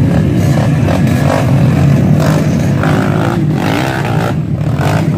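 Dirt bike engines running and revving hard as a trail bike climbs a steep, muddy bank under load.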